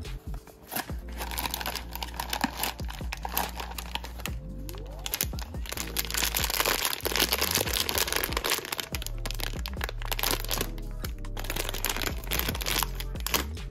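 A foil blind-box bag crinkling and rustling as hands handle and open it, loudest in the middle, over background music.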